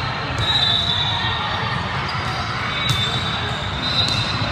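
Volleyball being struck during a rally, two sharp hits about a second apart near the end, over the steady murmur of voices in a large gym. A high steady tone sounds twice, each time for about a second.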